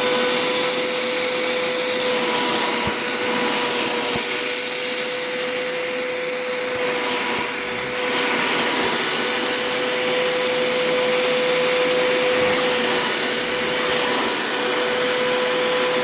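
Hoover Power Scrub Deluxe carpet cleaner running with its upholstery tool: a steady motor hum and whine over the rush of suction drawing water back out of a fabric couch. The suction's rush shifts a little now and then as the tool moves.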